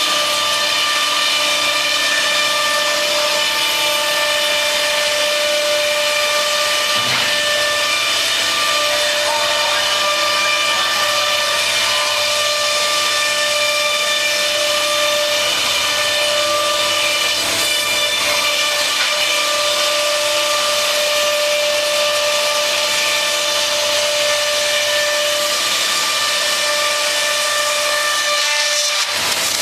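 C.R. Onsrud CNC router spindle running and cutting: a steady whine of several high tones over a constant hiss, dropping away briefly near the end.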